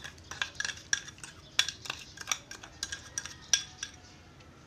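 A metal spoon clinking and scraping against bowls as sugar is tipped from a metal bowl into milk and stirred in. The clinks come irregularly, several a second, some leaving a faint metallic ring.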